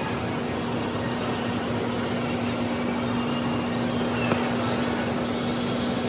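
Steady air-conditioning hum with a low, even drone, and a faint click about four seconds in.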